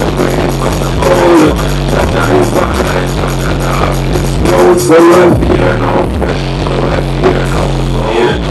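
Live electronic music: a steady programmed beat over a repeating bass line, with a voice through a handheld microphone gliding over it, most strongly about a second in and again about five seconds in.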